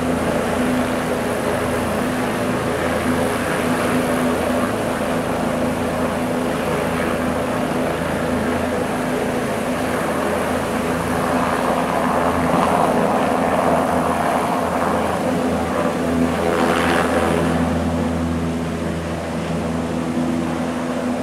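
Helicopter engine and rotor running steadily at close range as the helicopter lifts off, with a brief surge about three-quarters of the way through.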